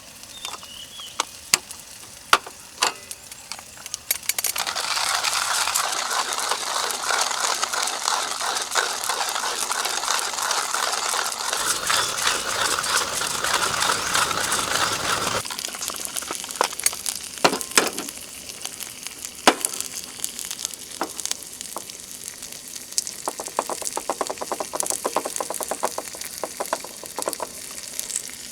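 Food frying in a pan, starting with a few sharp clicks and then a dense sizzle about four seconds in. The sizzle eases after about halfway into a lighter crackle with occasional sharp pops.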